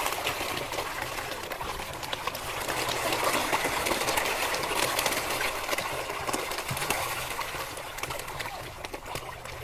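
A dense mass of koi crowding at the water surface to feed, splashing and smacking their mouths in a steady jumble of small wet clicks and splashes.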